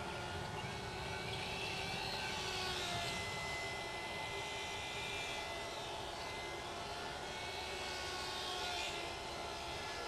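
Brushless electric motor and propeller of a Graupner Nemesis micro RC plane whining in flight. The whine slides up and down in pitch as the plane flies past, loudest about two to three seconds in and again near the end, over a low rumble.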